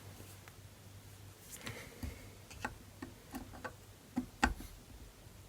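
Light, irregular clicks and taps of a screwdriver and small metal parts while a small screw is worked out of a VW distributor. A faint steady low hum runs underneath.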